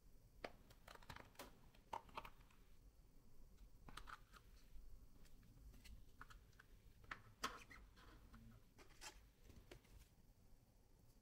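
Near silence: faint room tone with scattered soft clicks and scratchy rustles, roughly one every second.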